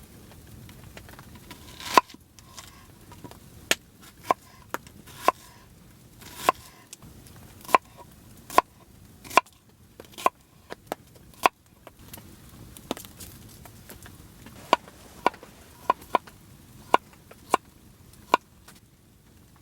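Wood being chopped with an edged tool: about twenty sharp, irregularly spaced strikes, roughly one a second, the loudest about two seconds in.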